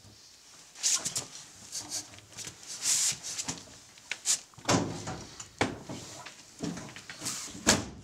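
Someone scrambling into the drum of a front-loading washing machine: irregular knocks, bumps and rustling scuffles, with several sharper knocks in the second half and the loudest one just before the sound cuts off abruptly.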